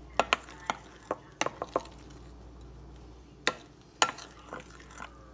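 A utensil knocking and clicking against a bowl in about a dozen irregular sharp taps, the loudest about four seconds in, as pancake batter is mixed.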